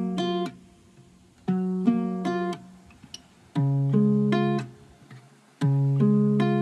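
Background music: a plucked guitar plays short phrases of a few notes. Each phrase lasts about a second, and they repeat roughly every two seconds with quiet gaps between.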